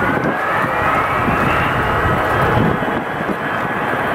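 Jet engines of a KC-10 Extender tanker, three General Electric CF6 turbofans, running at low thrust as the aircraft taxis and turns onto the runway. A steady rumble carries a high whine that slowly rises in pitch.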